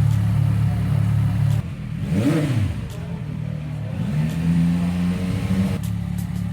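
CFMOTO 675SR-R's 675 cc three-cylinder engine running through its exhaust: idling, a quick throttle blip about two seconds in, then a longer rev held for a couple of seconds before it drops back to idle.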